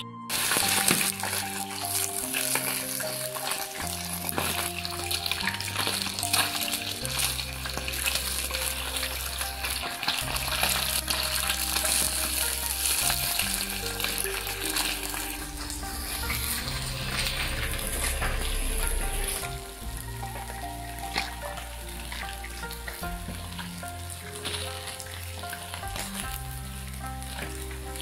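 Whole crucian carp frying in hot oil in a wok: a loud sizzle starts suddenly as the fish go into the oil and keeps up, easing a little about two-thirds of the way through. Background music plays underneath.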